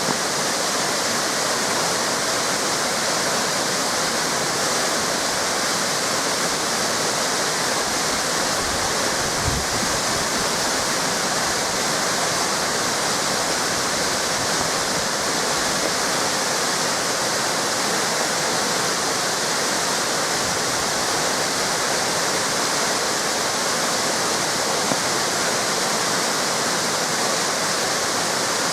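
Waterfall cascades rushing: a steady, full hiss of falling water with no change.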